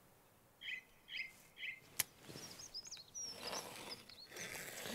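Faint birdsong: three short chirps in the first two seconds, then higher whistled notes. A single sharp click about two seconds in, then a soft scratching of a pencil drawn along a spirit level on sawn wood.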